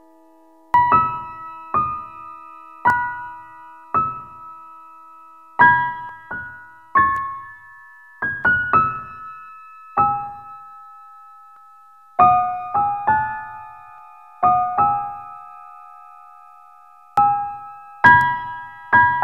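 Background piano music: slow single notes and chords struck about a second apart and left to ring out, with a longer pause past the middle.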